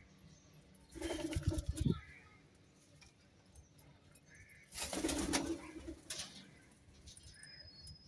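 Indian ringneck parakeets' wings flapping in two loud bursts as they fly in to a hand-held apple, one about a second in and another near the middle, with faint chirps between.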